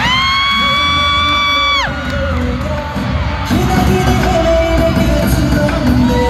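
Live K-pop boy band concert music with singing, heard from the arena crowd. At the start a loud high-pitched scream rises and holds for about two seconds, then breaks off while the music and crowd noise continue.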